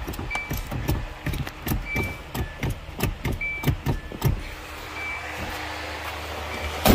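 Truck brake pedal pumped repeatedly by hand, a quick run of clunks about two to three a second with a few short squeaks, building pressure to test a dragging front brake. One loud bang near the end.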